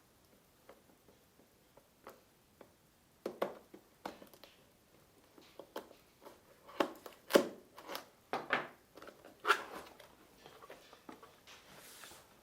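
A cardboard box and its packaging being opened and handled: an irregular series of scrapes, rustles and knocks, loudest in the middle, with a short hiss of sliding or rustling near the end.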